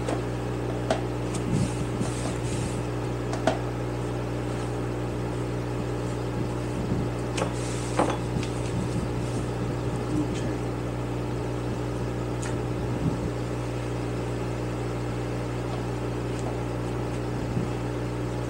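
Steady mechanical hum with scattered light clicks and knocks as a motorcycle carburetor is handled and wiped down with a paper towel, with brief paper rustling.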